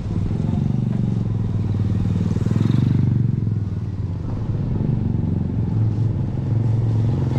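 A small engine running steadily close by, swelling louder around three seconds in.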